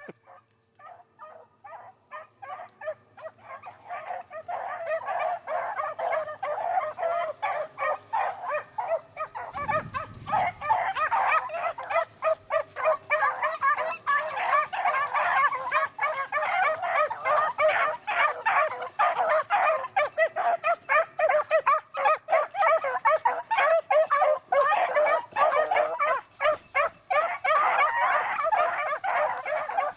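A pack of beagles baying as they run a rabbit: many overlapping calls, faint at first and building to loud, continuous baying within a few seconds.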